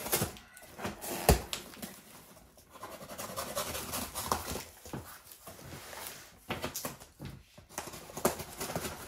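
A cardboard box being cut open with a pocket knife and its flaps pulled apart: irregular scraping, tearing and rustling of cardboard and packing tape, with a sharp knock about a second in.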